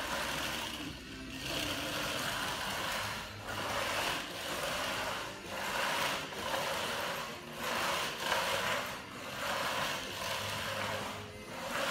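Spiked roller being pushed back and forth through wet self-levelling floor compound (Stopgap 600 base), a noisy sound that rises and falls in strokes about a second apart. This is the stage where spiking spreads the poured compound and releases trapped air.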